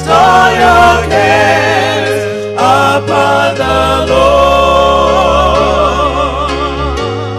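Gospel music: singing voices with a wide vibrato over held bass notes that change every second or so.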